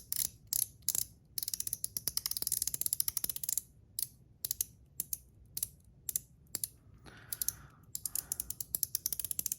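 Metal Top C fidget slider being worked by hand: sharp metallic clicks as it snaps through its ball-spring detents, some single and spaced out, some in fast rattling runs of many clicks a second.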